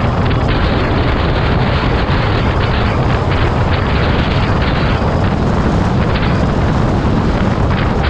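Steady wind rush buffeting the microphone over the low rumble of a moving vehicle, unbroken throughout.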